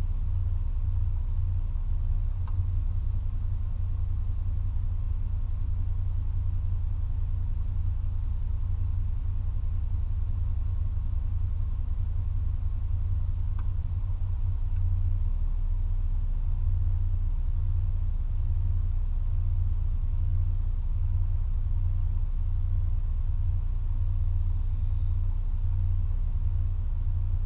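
A 2004 Toyota Tacoma TRD Off-Road running, heard as a steady low rumble with no change in pitch or level.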